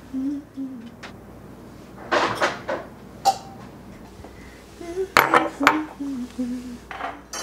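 Kitchen clatter of pots, dishes and utensils knocking and clinking in two bursts, with a woman humming a tune in short low notes between them.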